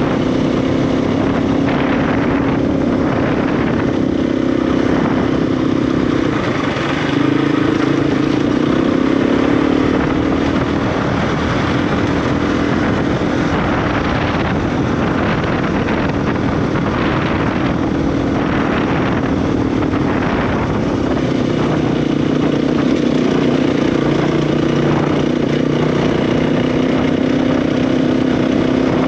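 KTM 350 EXC single-cylinder four-stroke dirt bike engine running under way, holding a steady note that changes pitch with throttle. There is a brief dip and a jump in pitch about seven seconds in.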